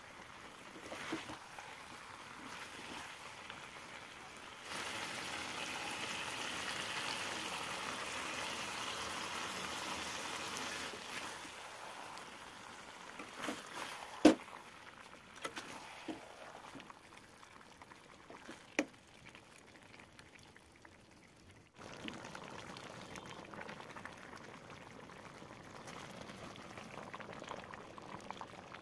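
Chicken curry cooking in a metal pan on a gas stove: steady sizzling and bubbling, louder from about five to eleven seconds in, while a steel ladle stirs it. A sharp clank of the ladle against the pan comes about 14 seconds in, the loudest sound, and a lighter one about 19 seconds in.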